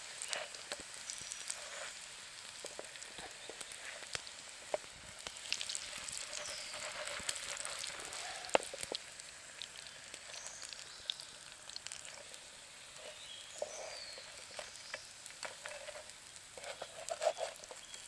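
Breaded chicken of the woods mushroom pieces shallow-frying in hot oil in a pan, a steady sizzle with scattered small pops and one sharper click about halfway through.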